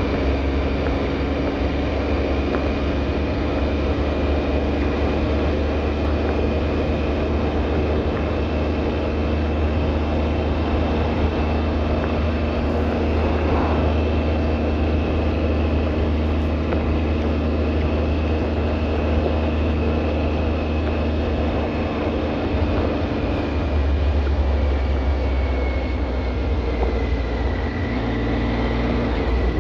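A steady mechanical drone with a deep rumble and a thin, high whine; the whine slides slightly lower in pitch near the end.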